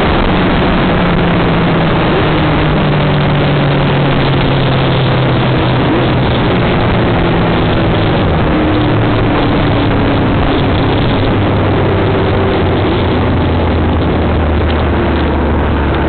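Motorcycle engine running at road speed under heavy wind rush on the microphone. The engine note holds and shifts in steps, then drops to a lower pitch about eight seconds in.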